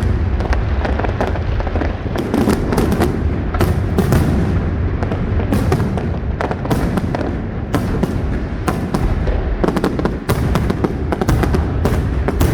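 Large fireworks display: a dense, continuous barrage of sharp bangs and crackles, several a second, over a steady deep rumble.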